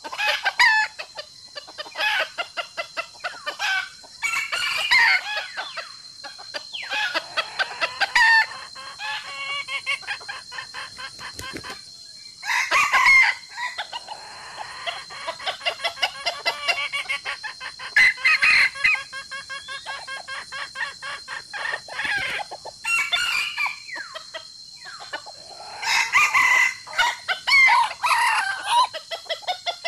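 Free-range chickens clucking in quick runs of repeated calls, with several louder, longer calls around a third, two thirds and most of the way through. A steady high buzz runs underneath.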